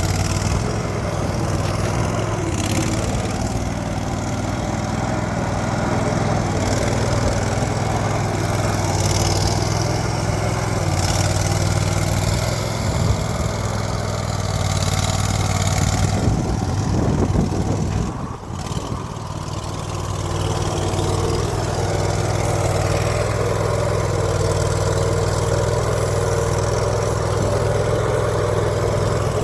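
Melrose 500 skid steer running on its newly fitted replacement engine, a steady engine hum with a brief dip in speed about two-thirds of the way through before it settles back.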